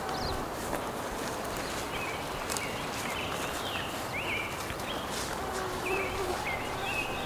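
A bird calling again and again with short, high notes, one or two a second, starting about two seconds in, over a steady outdoor hiss.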